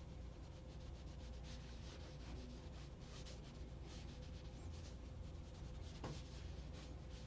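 Faint rubbing of a sponge on the painting's surface, smudging wet blue paint, over a faint steady hum.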